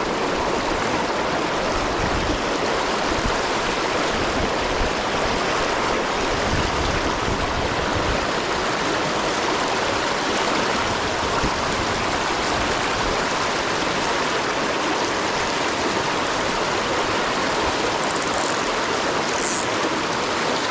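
River current rushing over rocks: a steady, unbroken sound of fast-flowing water.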